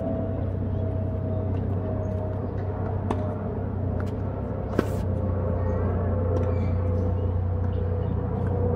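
Tennis balls being struck by rackets: sharp knocks about three seconds in and again, louder, near five seconds, over a steady low hum.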